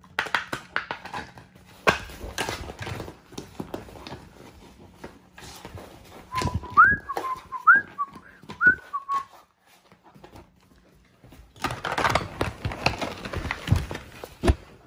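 Labrador retriever puppy chewing and crunching a plastic bottle, giving irregular crackles and crinkles of plastic. Around the middle, three short whistle-like squeaks rise in pitch.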